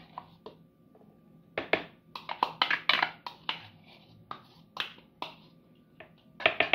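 Spoon tapping and scraping against a glass bowl and the rim of a plastic blender jar as spoonfuls of margarine are scooped out and knocked off. A quick run of sharp taps comes about two seconds in, followed by scattered single knocks.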